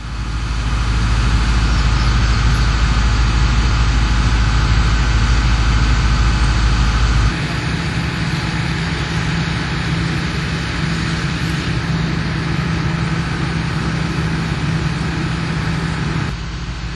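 Steady idling of a fire truck's diesel engine with a low, even hum. About seven seconds in the sound switches abruptly to a higher steady engine hum, and it drops again briefly near the end.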